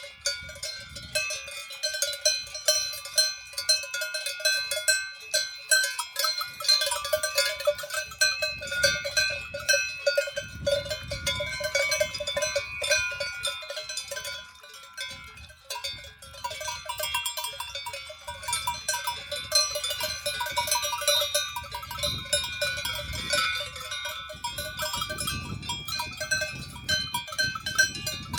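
Many cowbells on grazing cows clanking irregularly and overlapping, several bells of different pitches ringing at once.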